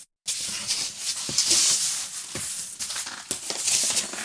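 A cardboard guitar box and its packing being opened and handled: continuous rustling and crinkling with scattered light knocks.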